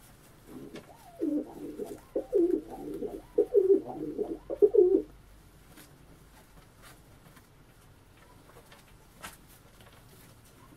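Domestic pigeon cooing: a run of low, rolling coos that stops about five seconds in.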